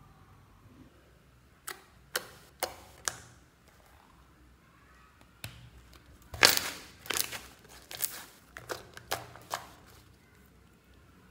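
Glossy slime squeezed and stretched by hand, giving sticky clicks and pops as trapped air bursts. Four single clicks come about half a second apart, then after a pause a louder, denser run of crackling pops and squelches.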